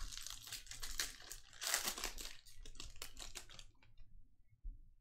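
Foil wrapper of a Panini Contenders football card pack crinkling with many small crackles as it is torn open, loudest about two seconds in and dying away before the end.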